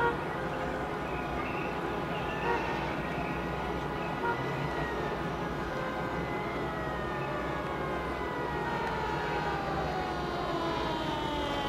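Emergency-vehicle sirens wailing over the noise of a large crowd in the street below. From about halfway through, a siren slowly falls in pitch as it winds down.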